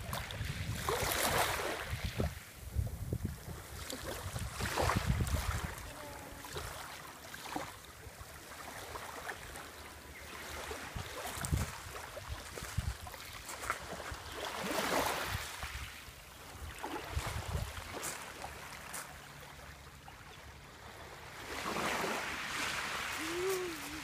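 Ocean waves washing onto the shore, rising and falling in several swells a few seconds apart. A low wind rumble on the microphone is heard in the first few seconds.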